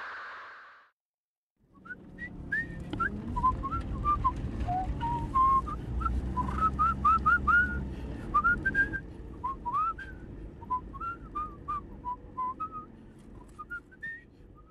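A person whistling a quick tune in short notes with small upward slides, over a low rumble. It starts about two seconds in after a brief silence and thins out near the end.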